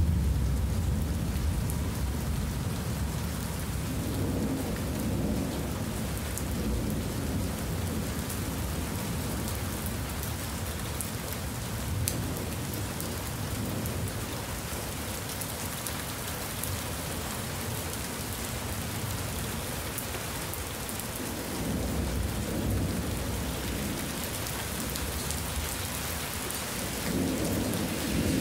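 Heavy rain falling steadily, with rolling thunder rumbling low several times: near the start, after about four seconds, and twice in the last third.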